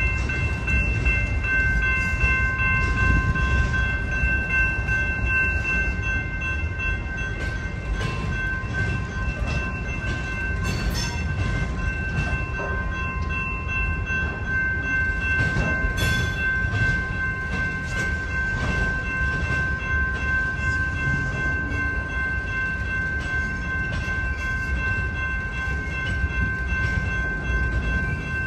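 BNSF manifest freight train's boxcars rolling past, a steady low rumble from the wheels on the rails, with several steady high-pitched tones held over it throughout.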